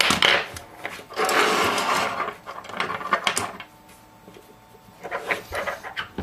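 Small Phillips screwdriver scraping and clicking against the screws and metal connector shield inside an iPhone as the screws are backed out. There is a dense stretch of scraping in the first half and runs of small clicks later on.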